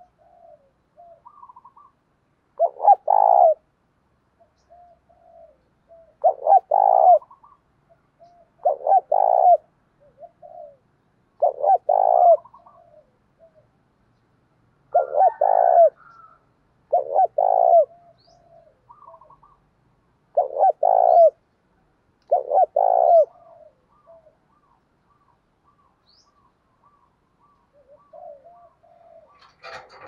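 Spotted dove cooing: eight loud coos a few seconds apart, each a short two-part phrase, with faint chirps from other birds between them.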